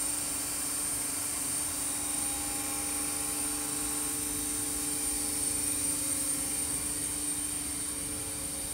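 Heidelberg SBD cylinder die-cutting press running, a steady mechanical hum with a high-pitched whine over it and no distinct knocks.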